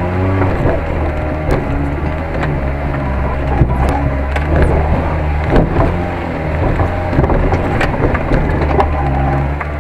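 SsangYong Korando SUV engine running as it drives over rough ground, its pitch rising and falling, with irregular sharp knocks and cracks every second or so.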